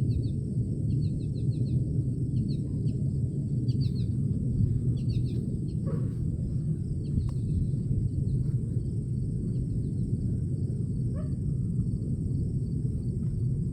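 A loud, steady, deep rumble coming from the sky, with no clear pitch or rhythm, while birds chirp in short bursts, mostly in the first half.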